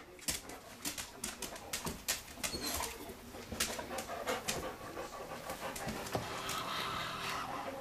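A dog panting in short breaths, several a second.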